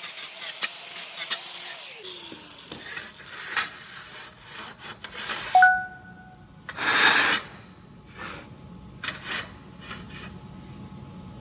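Fast, even scraping strokes of a hand tool for about two seconds, then scattered knocks, a single short ding a little past the middle, and a brief loud hiss-like burst just after it.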